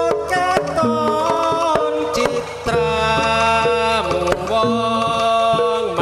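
Live Javanese jaranan ensemble music: sharp hand-drum strokes under a melody of long held notes that step up and down.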